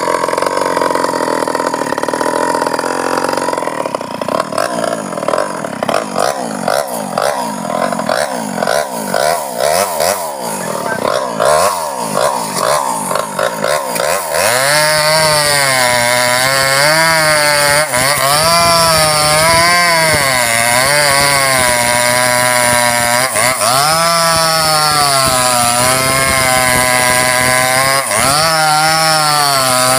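Two-stroke chainsaw cutting through a sengon log, its engine note rising and falling as the chain works through the wood. The pitch wavers quickly and unevenly for the first half, then from about halfway it runs at a steadier high pitch that sags and picks back up several times in the cut.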